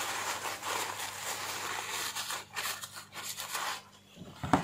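Paper tissue rustling and rubbing against a hair trimmer's metal cutting blade as the blade is wiped clean, dying away before a single light knock near the end.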